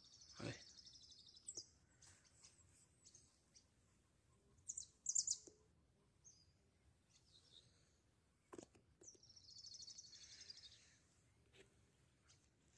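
Faint small songbirds singing: a high, rapid trill near the start, a few short chirps about five seconds in, and another trill about nine seconds in. There are a couple of soft knocks in between.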